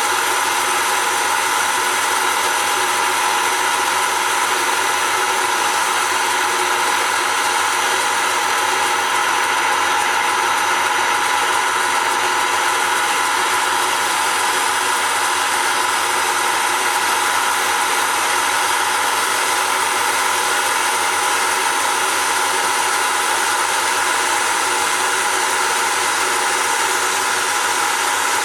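Wood-turning lathe running steadily while a homemade parting tool, made from an old file and used upside down, cuts into the spinning wood.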